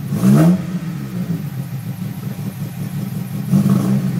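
Honda K20A2 2.0-litre inline-four with aggressive aftermarket cams idling roughly: an uneven, choppy idle that rises briefly near the start and again near the end. The lumpy idle comes from the modified camshafts.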